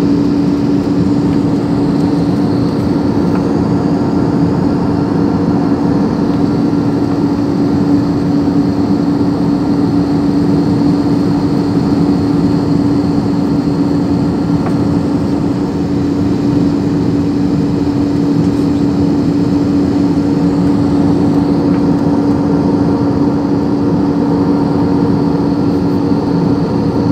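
Steady cabin noise of a jet airliner in cruise, heard from a window seat over the wing: an even roar of engines and rushing air with a steady low hum running through it.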